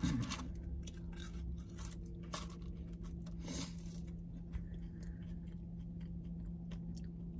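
A person chewing and crunching food close to the microphone, with irregular sharp crunches, over a steady low hum.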